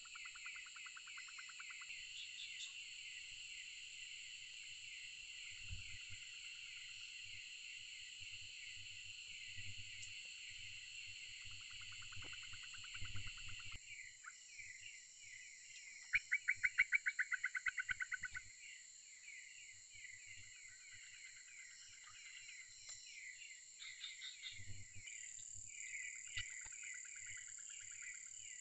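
Forest insects and frogs in a dense, steady chorus of high chirring and trilled pulse trains. A little past halfway, a louder run of about a dozen rapid pulsed calls stands out for about two seconds.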